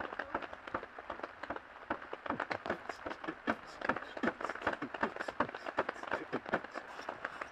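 Rain pattering on a taut surface: a quick, irregular run of small sharp taps of varying loudness, with no let-up.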